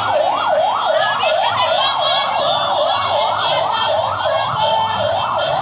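Siren in a fast yelp, its pitch sweeping up and down about three times a second without a break.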